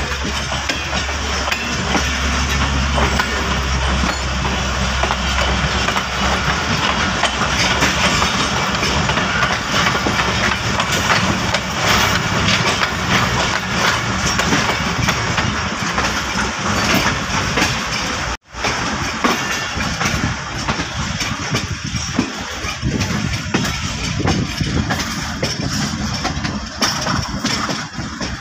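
Passenger train running, heard from an open coach door: a steady rumble and rattle of wheels on the rails with rushing air, and a deep drone in the first few seconds. The sound drops out for an instant about two-thirds of the way through.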